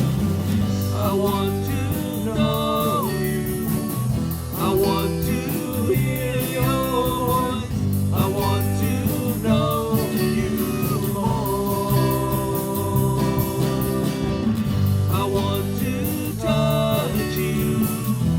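Worship band playing a contemporary Christian song with guitar and sung phrases, the lyrics too unclear for the recogniser.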